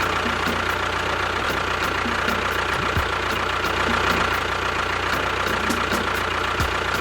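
A motor engine idling steadily, just after starting, with an even, unchanging rumble.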